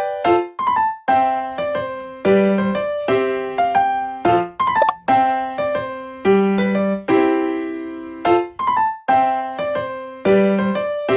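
Background music played on an electric piano or keyboard: sharply struck chords and a melody that repeats in short phrases, each note fading away.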